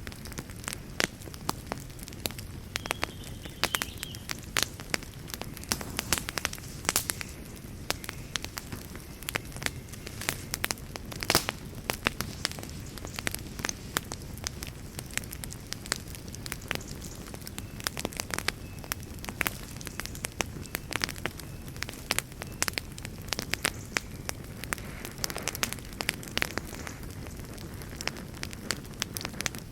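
Wood fire burning in a fireplace: a steady low rumble of flames with frequent sharp, irregular crackles and pops of the burning wood.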